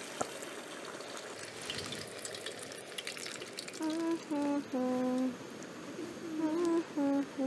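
A voice humming a simple tune of held, steady notes that starts about halfway through, two short phrases of a few notes each, over a steady background hiss.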